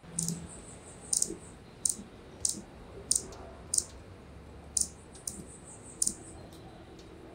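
Hummingbird giving a series of sharp, high chip calls, about ten short notes irregularly spaced over several seconds.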